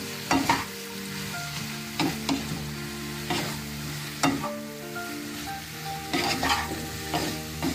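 Spatula stirring paneer and vegetables in a kadhai over faint frying sizzle, with scrapes and knocks against the pan now and then and more of them near the end. Soft background music with held notes runs underneath.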